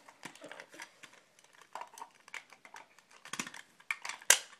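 Hard plastic parts of an Inspector Gadget action figure clicking and clacking irregularly as they are handled and fitted back together, with one sharp, loud snap near the end.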